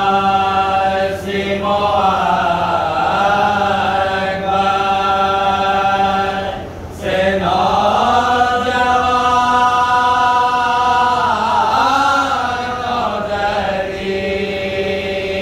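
Unaccompanied men's voices chanting together: a lead reciter with his chorus (humnawa) in a majlis recitation, holding long, slowly bending notes with short breaks for breath, the deepest about seven seconds in.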